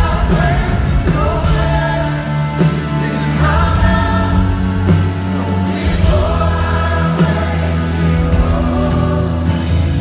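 Live worship music from a church band, with several voices singing together over held bass notes.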